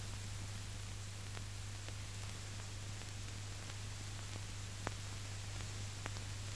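Steady hiss and low mains-type hum of an old optical film soundtrack between narration, with two faint crackle clicks in the second half.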